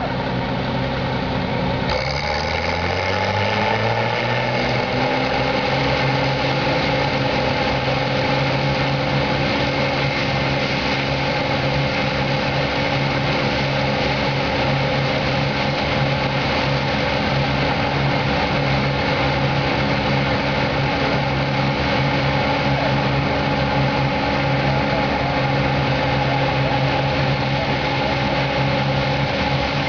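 Bizon Super Z056 combine harvester's diesel engine revving up about two seconds in, then running steadily at its full working speed of about 2700 rpm.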